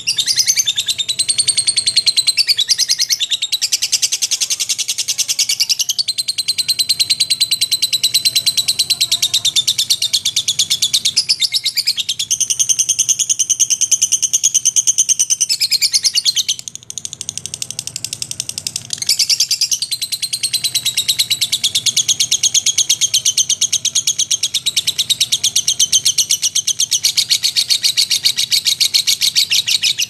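Lovebird singing its long 'ngekek' song: a fast, unbroken, high-pitched chattering trill. It falters briefly about 17 seconds in, then runs on.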